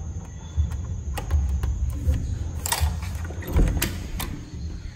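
Hotel room door with an electronic key-card lock being unlocked and opened: several sharp clicks and knocks from the lock and handle over a low rumble.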